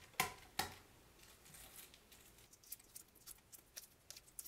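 Hard-boiled egg being shelled by hand on a wooden cutting board: a few sharp taps as the shell is cracked against the board in the first second, then faint crackling ticks as pieces of shell are peeled away.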